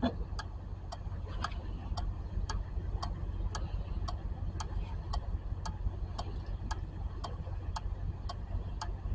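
A 2008 Honda Civic's 4-pin starter relay clicking on and off, about two to three clicks a second, as a relay tester cycles it. The relay is switching normally, which the mechanic takes as a sign that it is good.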